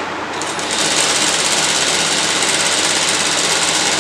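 Industrial single-needle lockstitch sewing machine running at speed, top-stitching a folded fabric strip. It is a little quieter for under a second at the start, then runs steadily as a fast, even needle clatter.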